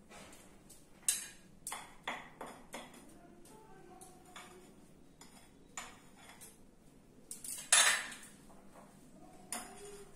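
Kitchen utensils clinking and knocking against a bowl and the countertop as pancake batter is mixed by hand: irregular clicks and clatters, the loudest about eight seconds in.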